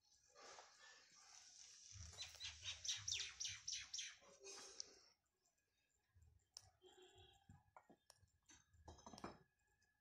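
A bird calling: a run of quick, high chirps, each falling in pitch, that builds over the first few seconds and stops about five seconds in. Faint scattered clicks follow.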